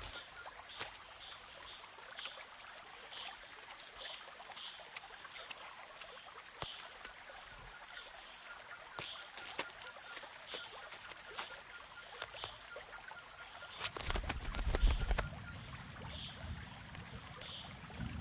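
Forest ambience: long, steady, high buzzing tones that come and go every few seconds, short repeated high calls, and scattered clicks. About fourteen seconds in, a louder low rumble comes with a cluster of clicks.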